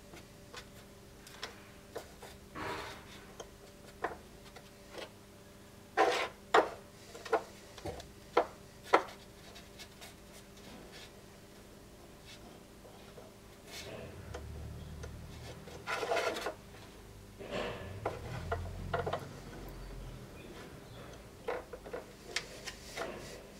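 Dark wooden knife-handle pieces being handled on a wooden workbench: scattered sharp knocks and clicks as they are set down and tapped together, a quick run of louder knocks about six to nine seconds in, then spells of rubbing and scraping as the pieces slide against each other and the bench.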